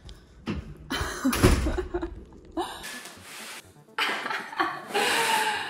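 Handling noise from a heavy cardboard box being carried, with rustling and knocks, then a loud, breathy outburst of a woman's voice in the last couple of seconds.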